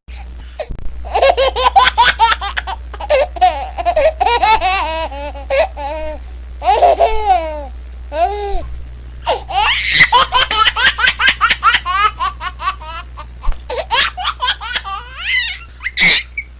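Baby laughing in several runs of rapid, high-pitched giggles and squeals, with short breaths between the fits. A steady low hum sits underneath.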